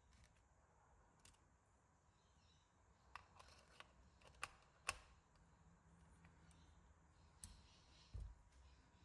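Quiet, scattered clicks and taps of small hard parts being handled as an electric motor is fitted onto a model car's gearbox, sharpest about five seconds in, with a soft low thump just after eight seconds.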